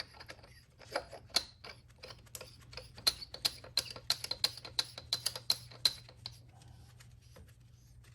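Oil separator canister being screwed back onto its head: a run of sharp, irregular clicks and ticks, several a second, that stops about six seconds in.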